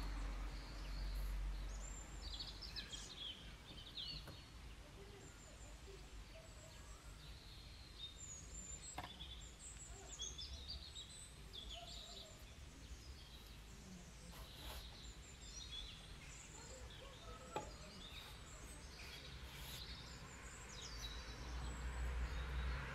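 Faint outdoor ambience: small birds chirping on and off over a low steady rumble, with a few soft knocks spread through it.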